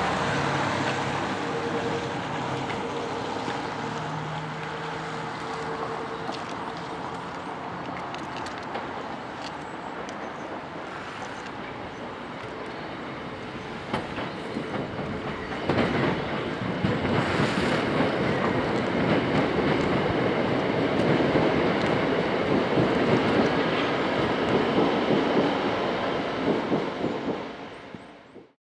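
Class 465 Networker electric multiple unit approaching over pointwork, its wheels clicking over the rail joints and points. It grows louder about halfway through as it nears, then fades out near the end.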